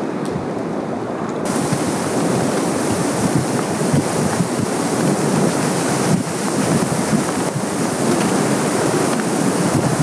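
Wind blowing through a forest's bare branches and the dry leaves still on them: a steady rushing noise. A brighter hiss joins about a second and a half in.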